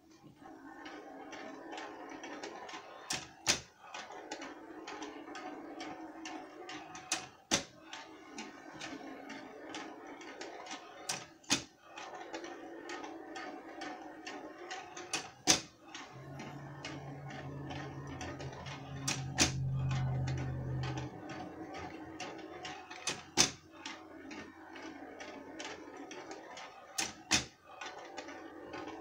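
Mechanical rolling ball timer running: a ball rolls along its tilting track with a continuous light rattle and ticking of the gear train, and about every four seconds the tray tips with a sharp double clack as the ball reaches the end and reverses. A low hum joins for about five seconds in the middle.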